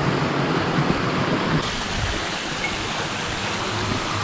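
Steady rush of falling water from a jungle waterfall or stream, an even hiss that gets brighter about one and a half seconds in.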